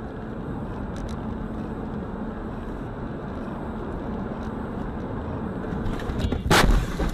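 Steady road and engine noise inside a moving car, then a sudden loud crash near the end as it collides with another car.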